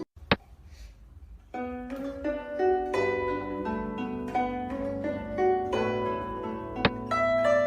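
Background music of plucked strings in a zither-like style, with a break of about a second and a half near the start before the music resumes. Two sharp clicks sound over it, one just after the start and one near the end.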